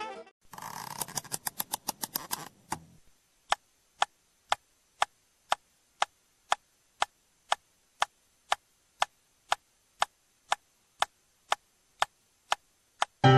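Steady, even ticking, about two sharp ticks a second. For the first two seconds faster ticks run over a faint hiss.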